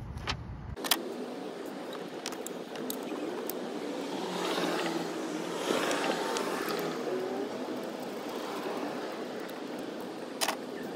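Gloved hands working on engine fittings, giving a few small clicks and rustles over steady background noise that swells and fades around the middle. The loudest click comes near the end.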